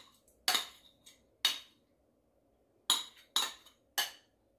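A metal spoon clinking against a small white bowl as beaten egg is scraped out of it: about five short, sharp clinks spread over a few seconds.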